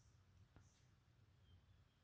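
Near silence, with faint high-pitched chirps repeating about every half second over a low hum.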